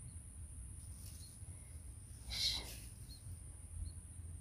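Quiet rural ambience: a steady high insect drone with faint short chirps about once a second over a low rumble, and one louder brief call about halfway through.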